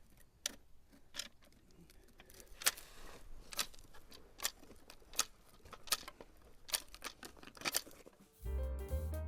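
Faint sharp clicks, about one a second, over a quiet background; piano music comes in near the end.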